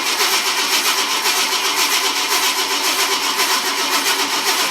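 1971 Ford F250's starter cranking the engine over in a steady pulsing churn without it catching: the engine is starved of fuel, with none reaching the carburettor.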